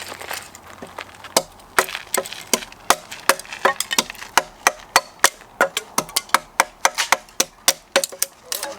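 Hatchet chopping wood into kindling: a quick run of sharp wooden knocks, about three or four a second.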